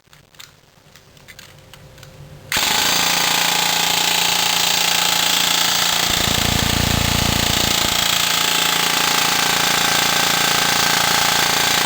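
Airsoft electric gun's gearbox cycling on full auto from a 9.6 V battery, a continuous rapid buzz at a steady rate. It starts about two and a half seconds in and does not let up.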